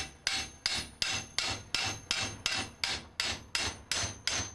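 Steady, even hammering on sheet metal, about three light strikes a second, each with a short metallic ring. The metal edge of a round lock hole is being peened to stretch it into a flat that keys the cam lock against turning.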